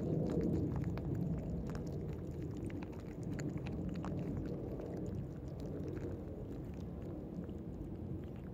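Several cats crunching dry cat food, many small crisp clicks scattered through, over a low rustling rumble of a cat's fur brushing against the microphone, loudest at the start.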